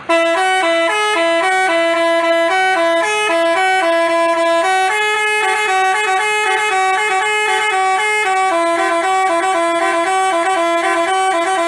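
Bus telolet basuri horn playing a fast tune: a few horn notes alternating quickly in a repeating melody, loud and steady.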